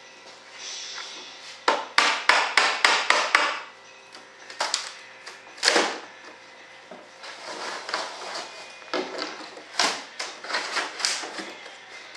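Sharp knocks against a mold as a molded composite part is worked free: a quick run of about eight knocks within two seconds, two single louder ones, then lighter scattered taps.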